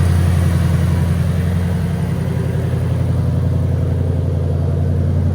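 A 2012 Ford Shelby GT500's supercharged 5.4-litre V8, fitted with a smaller VMP press-on supercharger pulley, idling steadily.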